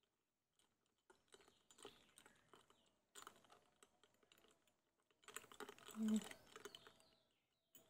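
A spoon stirring in a drinking glass, clinking lightly against the glass in three short runs of quick faint taps. One brief low tone stands out about six seconds in.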